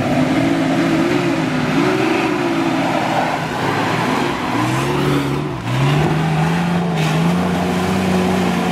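Off-road 4x4 engines revving hard in mud, the pitch rising and falling as a truck drives through the ruts. About halfway through a second engine takes over, held at steady high revs as a 4x4 claws up a muddy bank with its wheels spinning.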